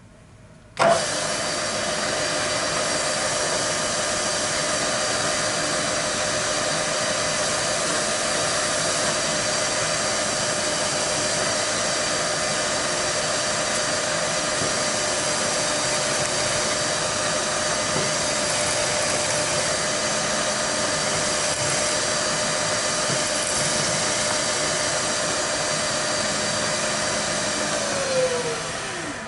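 A milling machine's spindle starts about a second in and runs steadily while its cutter machines a brass sphere held in a fixture, a steady hiss of cutting over a held tone. Near the end the spindle winds down with a falling whine.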